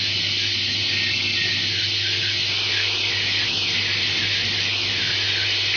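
Automatic screw-driving assembly machine running. Its vibratory bowl feeders give a steady low hum under a constant high, hissing rattle that wavers slightly.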